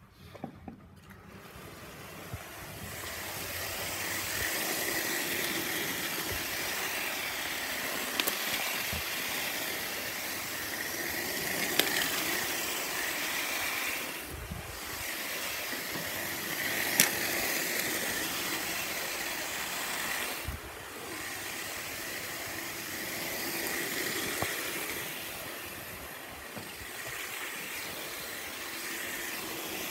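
Toy model train running on its track: a steady whirring hiss with rattle from the wheels on the rails. It swells and fades as the train passes close on each lap, with a few sharp clicks.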